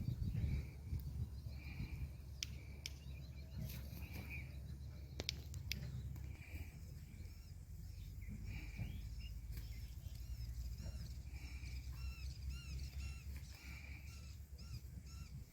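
Birds calling outdoors: one call repeats about every two seconds, and from about halfway through a run of short high chirps joins it, over a steady low rumble and a few scattered clicks.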